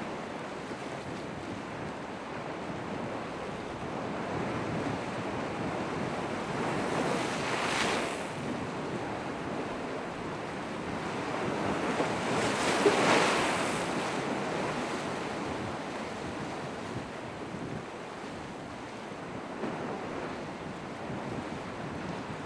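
Steady rush of surf and wind buffeting the microphone at an ocean inlet. The noise swells twice, about eight and thirteen seconds in.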